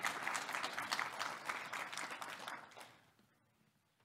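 Audience applauding, the clapping dying away about three seconds in.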